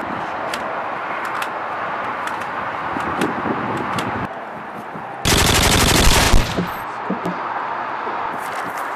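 A burst of rapid automatic machine-gun fire, starting abruptly about five seconds in and lasting about a second and a half, over a steady hiss with scattered clicks.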